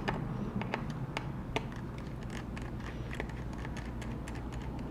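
Small, sharp clicks and ticks of a precision screwdriver and metal parts handled inside an opened MacBook Pro, coming at irregular intervals and bunching up in the middle, over a steady low hum.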